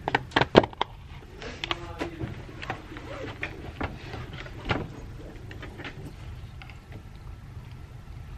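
A plastic food container's snap-on lid pried open with a quick run of sharp plastic clicks, then scattered lighter taps and scrapes of a plastic spoon in the container.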